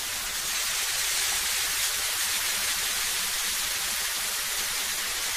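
Steady, even hissing noise with no rhythm or pitch, cutting in abruptly at the start and holding level throughout.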